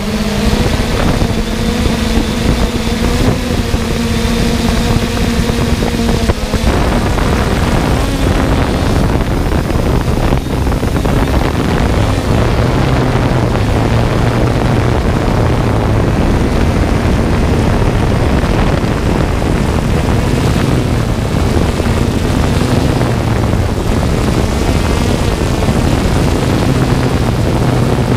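3DR Solo quadcopter's motors and propellers humming steadily, heard close up from the drone's own camera, with wind noise on the microphone. The hum drops in pitch about six seconds in.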